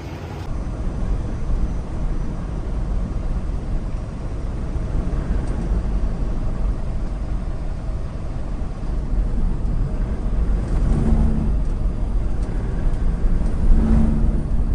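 Steady low rumble of a semi-truck's engine and road and wind noise, heard from inside the moving cab, growing a little louder over the last few seconds.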